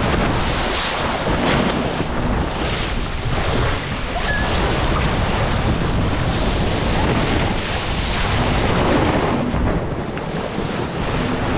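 Wind buffeting the microphone over the steady rush and splash of the bow wave along a J/70 sailboat's hull as it sails fast.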